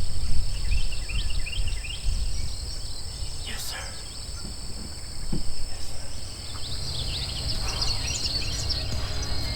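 Low rumble of wind on the microphone, with small birds chirping twice in short runs and a steady high insect-like drone.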